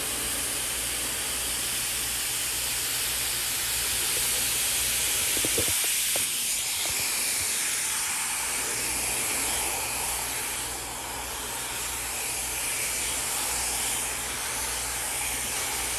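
Handheld hair dryer running steadily, blowing on a section of hair held on a round brush to heat the roots: an even rush of air over a low motor hum.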